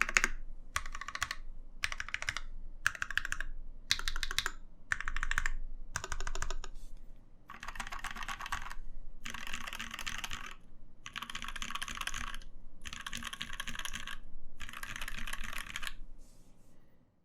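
Satisfaction75 custom mechanical keyboard with lubed Mauve switches, a brass plate and JTK Hyperfuse keycaps being typed on. The typing comes in short bursts separated by brief pauses, then in longer runs in the second half, and stops shortly before the end.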